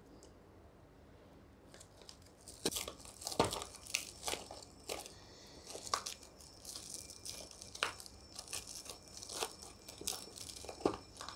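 Clear plastic wrap being torn and peeled off a small cardboard box: irregular crinkling with many sharp crackles. It starts about two and a half seconds in and keeps going.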